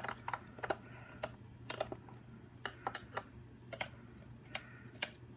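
Faint, irregular light clicks and taps, a few a second, over a steady low hum.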